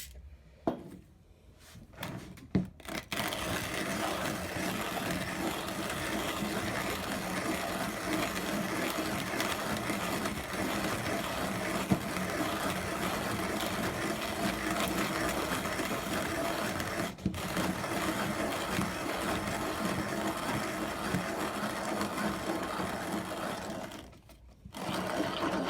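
Zassenhaus 142 'Record' manual conical burr coffee grinder grinding coffee beans at its finest setting, burrs touching: the crank is turned steadily for about 33 turns, with a brief break partway, then stops. A few handling clicks come before the grinding starts.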